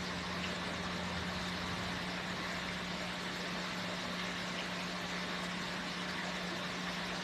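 Steady machine hum: a constant low drone under an even hiss, unchanging throughout.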